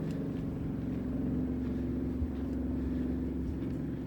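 Engine running steadily, a constant low hum with no change in pitch.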